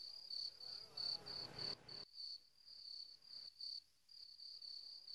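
A cricket chirping steadily, a faint high-pitched chirp repeated about three to four times a second.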